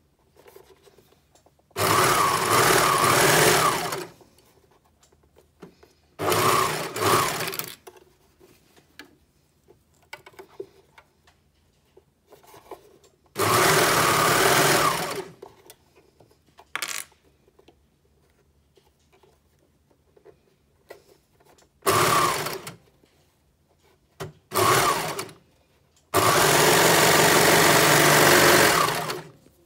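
Baby Lock Imagine overlocker stitching elastic onto fabric in stop-start runs of one to three seconds, with short pauses between. The longest run comes near the end.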